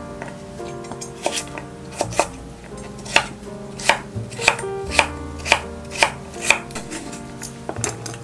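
Kitchen knife chopping cucumber on a wooden cutting board: sharp knocks of the blade on the board, a few at first, then a steady run of about two a second, with lighter cuts near the end.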